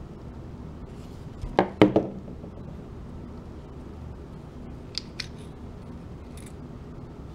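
Steel pistol parts of a Beretta 92 clicking and knocking as it is field-stripped by hand. A quick cluster of three sharp knocks comes about two seconds in, then two lighter clicks around five seconds in as the slide's recoil spring and guide rod are handled.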